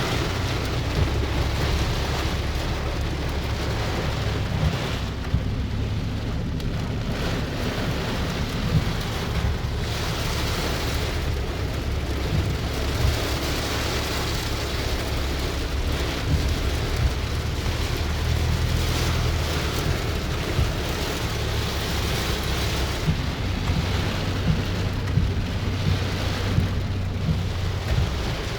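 Steady rain falling, with a continuous low rumble underneath and scattered sharp taps from drops close by.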